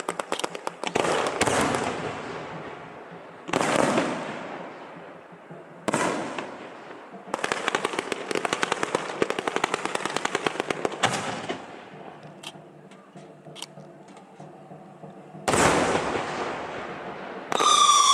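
Aerial fireworks going off: sudden loud bangs, each trailing into a long fading crackle, with dense strings of rapid pops in between. A falling whistle starts near the end.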